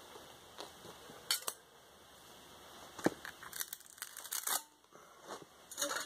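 Steel pliers clicking and scraping against a bronze casting and the rim of a steel casting flask as the casting is worked loose from the sand. A scatter of sharp metallic clicks, a couple early, then quicker clusters in the second half and near the end.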